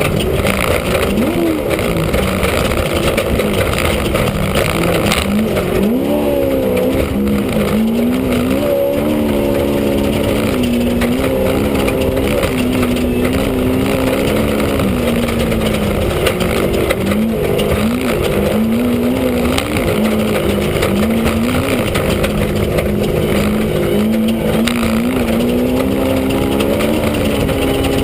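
Off-road race vehicle's engine heard from inside the cabin, its revs repeatedly rising and falling as the throttle is worked. A loud, constant din of noise runs underneath.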